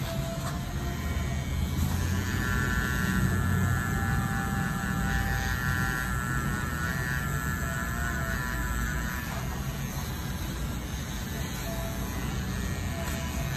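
Mast Tour Pro rotary tattoo pen machine running with a steady electric hum as the needle works into the skin.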